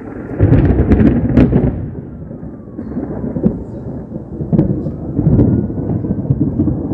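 Thunder from a nearby lightning strike: a loud rolling rumble that surges in about half a second in, is loudest with sharp crackles over the next second or so, then keeps rolling in softer swells.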